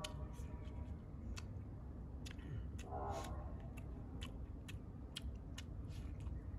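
Someone eating a rice bowl: irregular sharp clicks, about two or three a second, of utensils and chewing over a low background rumble.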